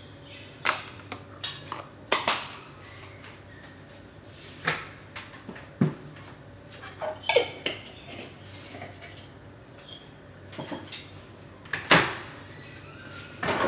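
Kitchen utensils and containers clattering as seasonings are added to flour in a plastic tub: scattered sharp clicks and knocks, the loudest about twelve seconds in.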